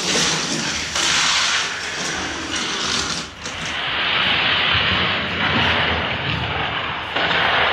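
Die-cast toy cars rolling down a plastic race track: a steady rolling hiss and rumble that dips for a moment about three seconds in.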